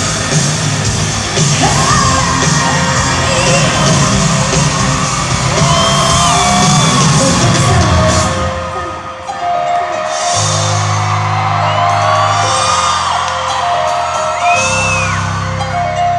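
Live arena concert: loud full-band music for about eight seconds, then a short dip and held low chords, with the crowd's screams and whoops rising and falling over it.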